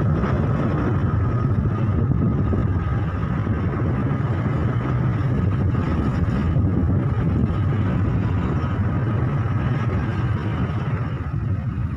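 Steady low rumble of a vehicle in motion, with wind rumble on the microphone, easing a little near the end.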